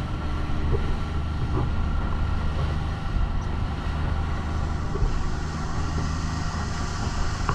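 A motor engine running steadily, an even low drone with a noisy rush over it.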